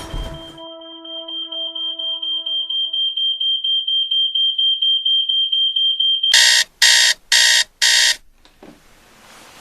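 Smoke alarm sounding: a high, shrill tone pulsing rapidly and growing louder, then four loud, harsh blasts about half a second apart.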